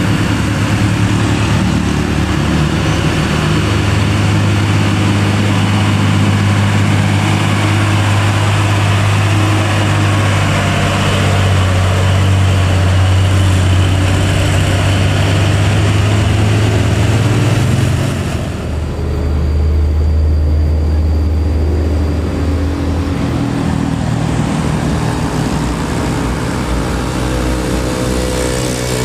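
Heavy diesel trucks pulling up a steep grade, with a loud, steady low engine drone under load. About two-thirds of the way in the sound changes abruptly to a different truck's engine.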